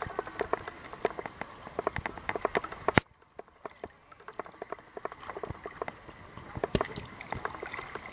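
Irregular light clicks and knocks, many close together, with one loud sharp click about three seconds in after which the background goes quieter before the knocking resumes.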